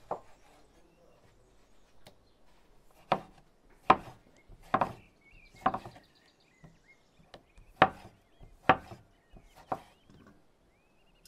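Knife slicing tomatoes on a wooden cutting board: each cut ends in a sharp knock of the blade on the wood, about eight in all, roughly a second apart and somewhat irregular.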